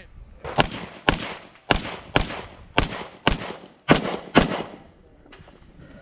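CZ Czechmate 9mm open-class race pistol with compensator firing eight shots in quick succession, about two a second, then a pause of about a second and a half.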